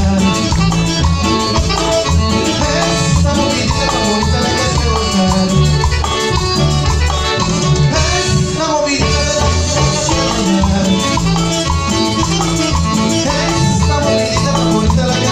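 Live cumbia band playing a dance tune with a steady beat: bass, electric guitar, keyboard and percussion, with singing.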